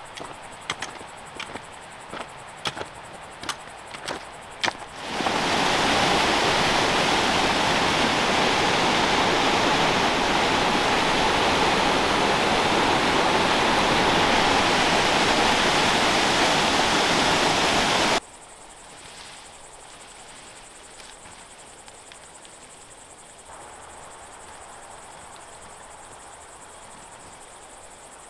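A run of sharp, irregular clicks over a faint high chirring, then the steady rush of the Cascade de Bérard waterfall, which comes in about five seconds in and cuts off suddenly some thirteen seconds later. After it only a faint, steady chirring of crickets remains.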